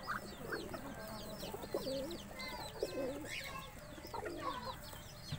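Many backyard birds calling over one another: a dense stream of short, high, falling chirps throughout, with lower clucking calls scattered in between.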